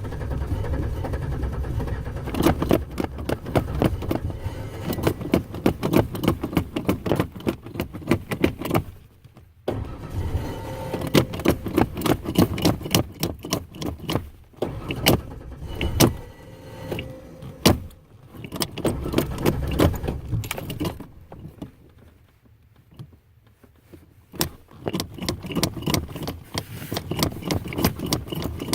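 Ford Ranger pickup's engine being cranked by the starter in several long attempts, with short pauses between, a fast rhythmic chugging that never settles into a steady idle: the engine is hard to start and does not catch.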